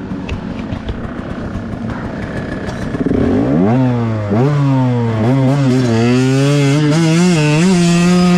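2021 KTM 125XC two-stroke single-cylinder dirt bike engine running low for about three seconds, then revving up and accelerating away, its pitch climbing and dropping several times through gear changes before wavering with the throttle.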